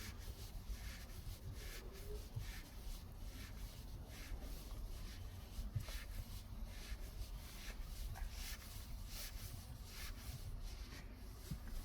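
Faint, irregular rubbing and scraping of hands twisting a Ford Performance shift knob onto the shifter's threads, in short repeated strokes.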